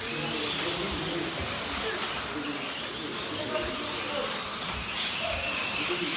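Slot cars running on the track: a steady high hiss from their small electric motors and tyres, with faint voices behind it.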